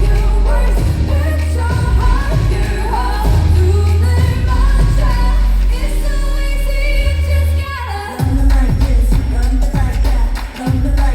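K-pop song with singing over a heavy bass beat, played through a concert hall's sound system. The bass drops out for about two seconds past the middle and comes back after a falling sweep.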